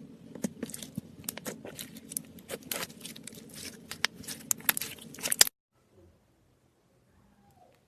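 Slime being worked by hand, giving a rapid, irregular run of sharp crackling clicks and pops that cuts off abruptly about five and a half seconds in.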